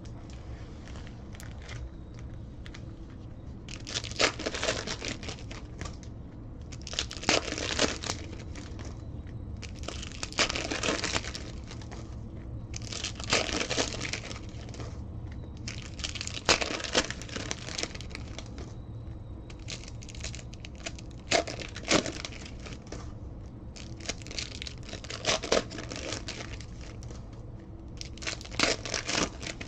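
Foil trading-card pack wrappers being torn open and crinkled, one pack after another, in about eight bursts spaced every three seconds or so.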